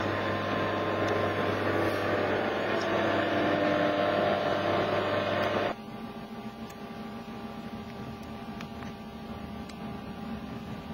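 Electric motor of a motorized projection screen running with a steady hum, then stopping abruptly about six seconds in. A quieter steady hum with a few faint ticks remains after that.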